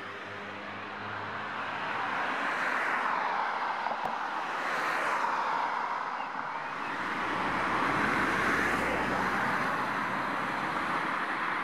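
Road traffic passing: a steady rush of tyre and engine noise that swells twice, about three seconds in and again past the middle.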